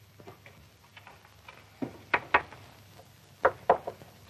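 A few sharp knocks on wood: three in quick succession about two seconds in, and three more near the end.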